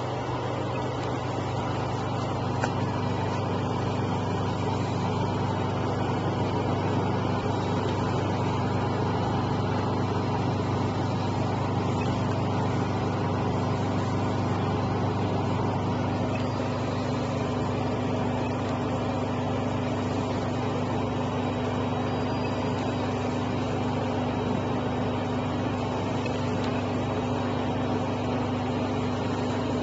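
Centrifugal fruit and vegetable spin dehydrator running, its drum spinning at speed with a steady motor hum. A higher note in the hum grows a little stronger about halfway through.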